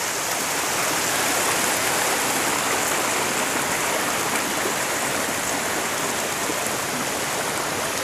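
Mountain stream rushing over rocks: a steady, even hiss of running water.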